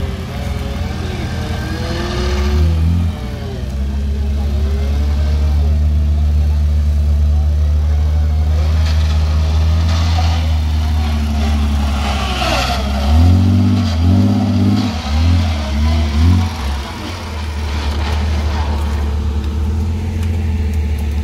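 An off-road vehicle's engine running with a steady low tone. A little past halfway it is revved in a quick series of four or five short bursts, then settles back to a steady run.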